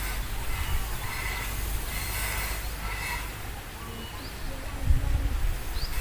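Wind buffeting the microphone in a steady low rumble, with a stronger low bump about five seconds in. A few short, rising bird chirps come over it.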